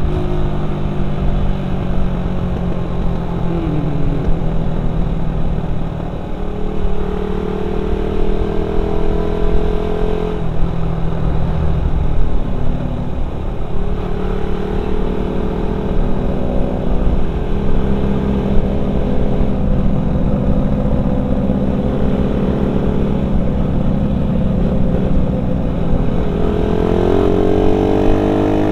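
Suzuki Satria FU 150 single-cylinder four-stroke engine running under way through a C-type header pipe and stock muffler, its pitch rising and falling as it is revved and eased off, with brief drops in between. The exhaust note is a little tinny ('cempreng'), and the engine stutters at high revs, which the rider suspects is the carburettor.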